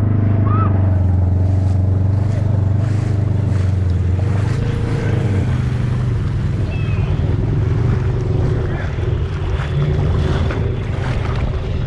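ATV engine running steadily while the quad wades through deep muddy water, with water rushing and sloshing against it. The engine hum eases about halfway through, leaving more of the water noise.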